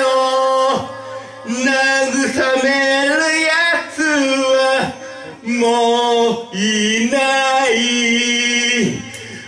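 A man singing a rock song live in several long held phrases with wavering pitch and short breaks between them, accompanied by his acoustic-electric guitar.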